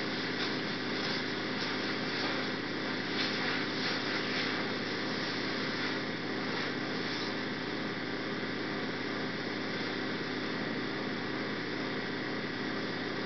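Steady hum with hiss, unchanging throughout, with no distinct sound events.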